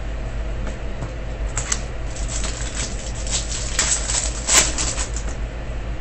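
Foil wrapper of a baseball card pack crinkling and tearing as it is ripped open by hand: a run of crackles, loudest about four and a half seconds in. A steady low hum runs underneath.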